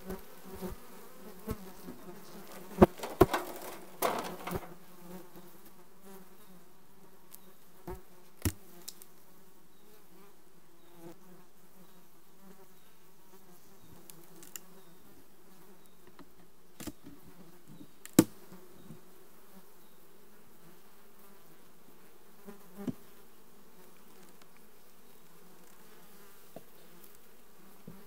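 Honeybee colony buzzing steadily from an open hive, with sharp clicks and knocks of the hive tool, frames and wooden cover: a cluster in the first few seconds, then single ones scattered later.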